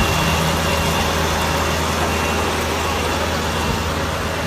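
Tractor engine running steadily under load while driving a Maschio Gaspardo Trotter 125 round baler, with a low even engine hum over mechanical noise.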